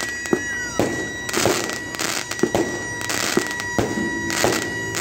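Procession band percussion: cymbal crashes and drum beats at an even march pulse. Held brass notes join near the end.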